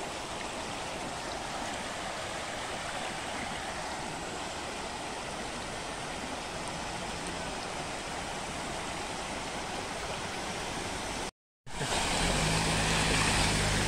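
Steady rush of floodwater from an overflowing river. After a short break about eleven seconds in, it grows louder and a car's engine hums close by as the car comes through the water.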